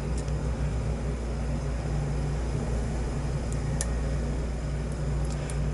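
Steady low hum and hiss of background noise, with a few faint light clicks of a lock pick working the pins inside a padlock, mostly in the second half.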